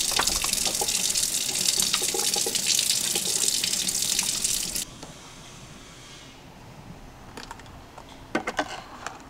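Kitchen faucet running into a sink, water splashing as a glass is rinsed under the stream; the water stops abruptly about five seconds in. A few light clicks near the end.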